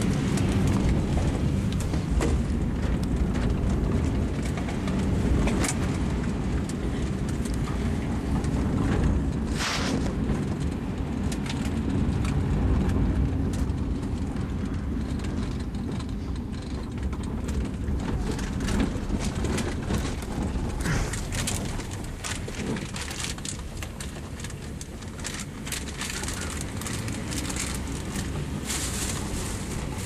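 Car running along a wet, rough road, heard from inside the cabin: a steady low rumble of engine and road noise with scattered clicks and knocks, more of them near the end.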